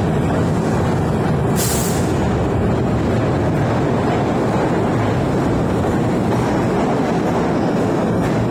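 Broad Street Line subway train running in the station, a steady loud rumble, with a short high hiss about one and a half seconds in.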